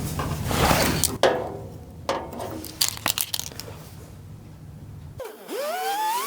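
Rusty sheet-metal body panels being handled and fitted: scraping and rustling with a few sharp clicks and knocks. About five seconds in this cuts off and music begins with a pitch sliding upward.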